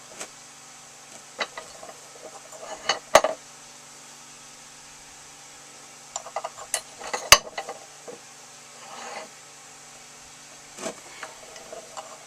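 Metal tools and machine parts being handled and set down at a milling machine: scattered clinks and knocks, the sharpest about three seconds and about seven seconds in, over a faint steady hum.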